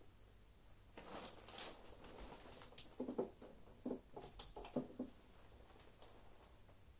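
Rustling, then a handful of short soft knocks and a few sharp clicks as wrapped gift boxes and the base of an artificial Christmas tree are handled.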